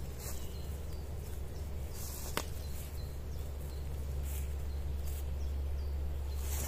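Outdoor ambience: a steady low rumble under faint, short high chirps that repeat about twice a second, with one sharp click about two and a half seconds in.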